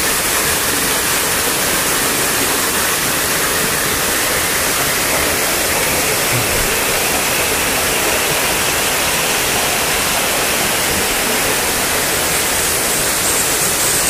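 Steady rush of a waterfall, a mountain stream pouring over rock, as an even, unbroken roar of water.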